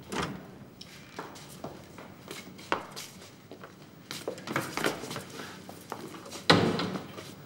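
Footsteps and small knocks of people moving about a room, with one louder sudden sound about six and a half seconds in.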